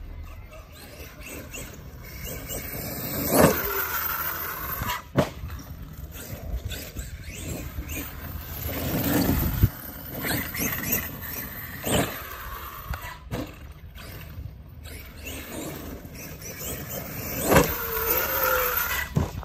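Arrma Kraton EXB electric RC monster truck driving over grass, its brushless motor whining up and down with the throttle. Several sharp knocks come from landings and bumps.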